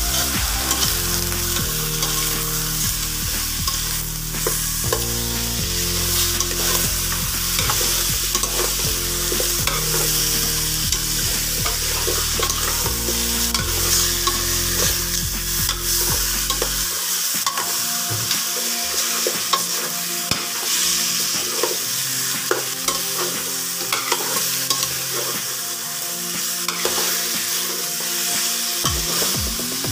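Chicken pieces sizzling and frying in a pot, with a spoon stirring and scraping them around against the pot's metal sides.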